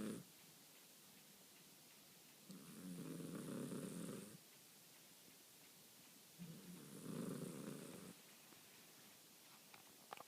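Persian cat snoring in its sleep: two drawn-out snores, each about two seconds long, a few seconds apart, with near silence between them.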